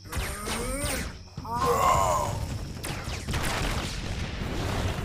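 Cartoon action sound: a character's wordless effort cries with bending pitch in the first two seconds, then a long rushing crash noise as a cartoon dust cloud bursts across the scene.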